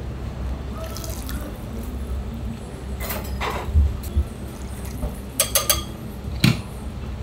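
Hot ramen broth poured from a hammered aluminium pan into a ceramic bowl. Sharp metal-and-crockery clinks follow: one about three seconds in, three in quick succession near five and a half seconds, and one more shortly after. A steady low hum runs underneath.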